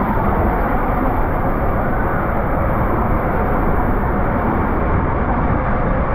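Rider sliding feet-first down an enclosed water-slide tube, water and body rushing against the tube walls right at the microphone: a loud, steady rushing rumble.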